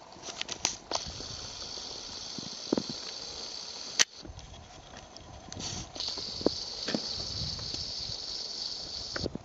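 A steady high-pitched hiss that breaks off after a sharp click about four seconds in and returns a second or two later, with a few soft knocks scattered through.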